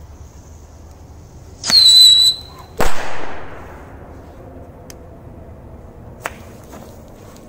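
Firecrackers: a shrill pyrotechnic whistle for about half a second, then a sharp bang about a second later that echoes away over a second or so. A small crack follows near the end.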